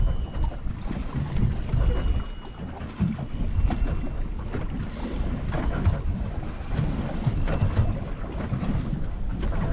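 Wind buffeting the microphone over water slapping against a boat's hull, with a few light knocks.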